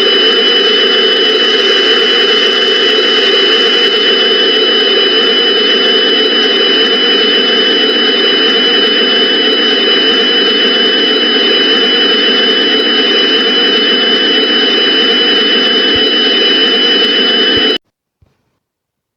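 Looped emergency-alert-style background noise: a loud, steady hissing drone with two high, steady whistling tones over it. It cuts off abruptly near the end, leaving silence broken by one faint click.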